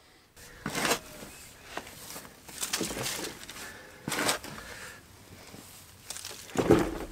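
Pointed shovel cutting and scraping into aged compost of broken-down wood chips, chicken and rabbit manure with straw on top: a crunching scrape every second or two, the loudest near the end.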